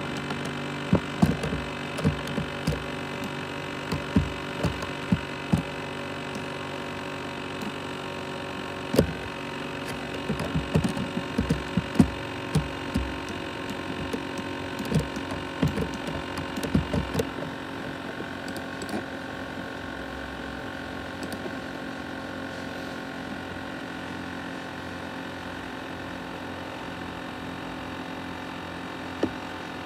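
Laptop cooling fan and hard drive running: a steady hum with several whining tones, overlaid with irregular knocks and clicks through the first half. A higher whine stops a little over halfway through.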